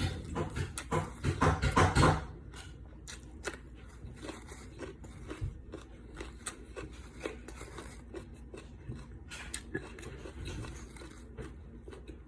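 Person eating: quiet chewing and crunching with scattered small clicks and scrapes. A louder, noisier sound fills the first two seconds.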